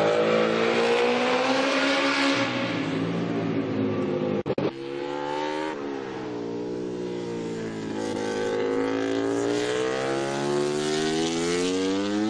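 MotoGP racing motorcycle's four-cylinder engine at high revs, its pitch falling and then climbing steadily as the bike accelerates. The sound breaks off briefly about four and a half seconds in.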